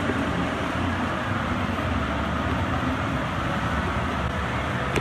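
Steady rumbling hiss from a model railroad layout's artificial rainstorm: water falling and splashing into the miniature river.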